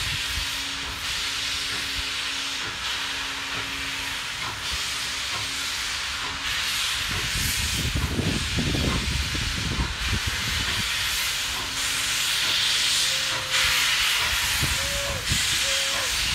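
Steam locomotive hissing loudly as it starts slowly away with its cylinder cocks open. The hiss swells and eases every couple of seconds, and a low rumble runs under it.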